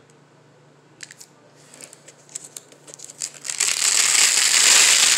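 Protective sheet crinkling as it is peeled off the LED board of a grow light, after a few small handling clicks; the crinkling starts about three and a half seconds in and is loud and continuous.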